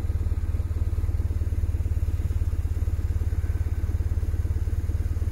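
A motor running steadily with a low, rapid, even throb.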